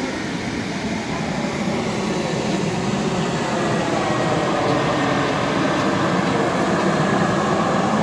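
Lower Düden Falls plunging off a sea cliff into the Mediterranean: a steady rush of falling water that grows louder over the second half.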